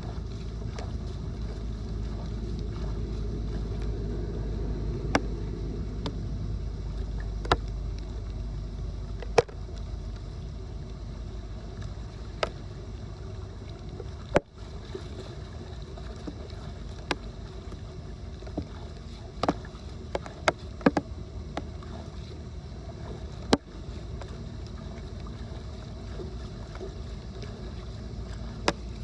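Steady low rush of floodwater draining, with a dozen or so sharp knocks and clicks scattered through it.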